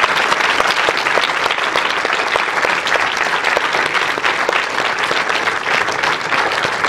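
Audience applause in a cinema hall: many people clapping steadily, with the panel on stage joining in.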